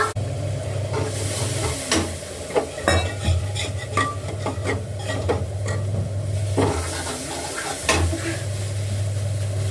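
Hands kneading wheat-flour dough: irregular squishing, pressing and light knocks, with no steady rhythm.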